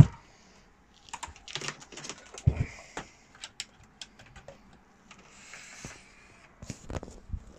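Handling noise from a plastic-cased 1980s Ferguson radio cassette player being moved and turned around on a cloth-covered table: irregular clicks and light knocks, with a louder knock about two and a half seconds in and a brief soft rustle near six seconds.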